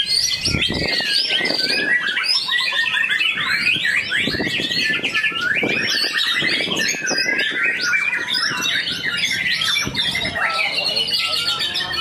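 White-rumped shamas (murai batu) singing in a dense, unbroken stream of rapid overlapping trills, whistles and chatter.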